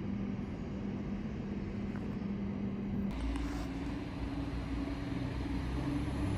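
Train in the station running with a steady hum and a clear tone. About three seconds in the tone steps up in pitch and a deep rumble joins it.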